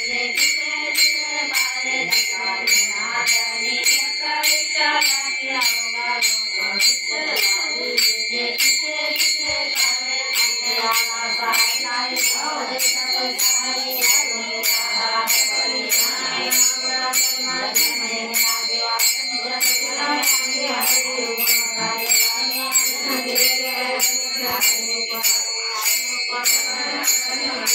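Marathi devotional bhajan singing accompanied by small hand cymbals struck in a steady beat, about two strokes a second, their ringing running on high above the voice.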